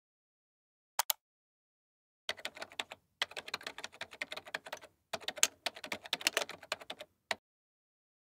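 Computer keyboard typing in fast runs of keystrokes, with a short double click about a second in and a single click near the end.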